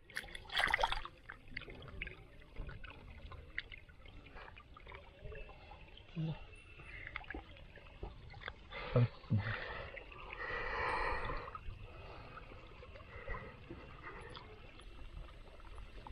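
Hands splashing and sloshing in shallow muddy ditch water while groping along the mud bank for crabs, with scattered small splashes and drips. A brief stretch of voices is heard about two-thirds of the way through.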